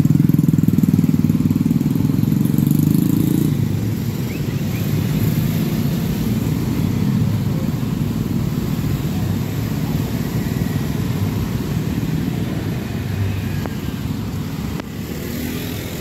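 Motorbike and scooter traffic: several small engines running as riders pass close by. It is loudest for the first three or four seconds, then settles to a steadier, slightly quieter run of passing bikes.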